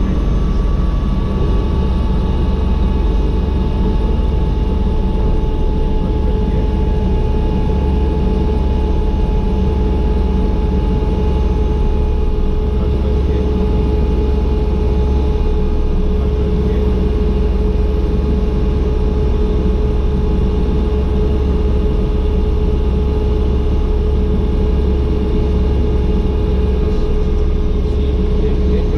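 Agusta AW119 helicopter's single PT6B turboshaft engine and rotors running steadily on the ground, heard from inside the cockpit: a constant low rumble with a steady turbine whine over it.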